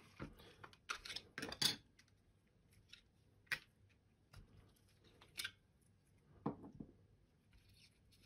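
A handful of scattered sharp plastic clicks and taps from a Logitech M185 wireless mouse being handled: its USB receiver is set down, and its battery cover is taken off and the battery removed.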